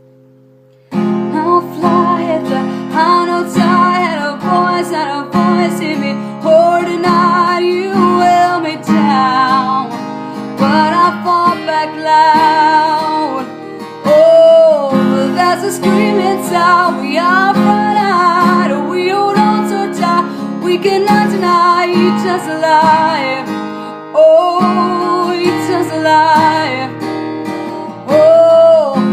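Music from a pop song: guitar chords under a wavering, bending melody line. It comes in loudly about a second in, after a quiet held chord.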